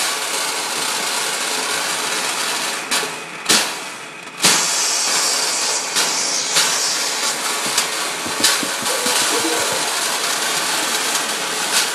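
Carbon dioxide blasting out of a pressurised tank through a dry-ice maker: a loud, steady rushing hiss as the gas turns to a cloud of CO2 snow. A few sharp knocks break in three to four and a half seconds in.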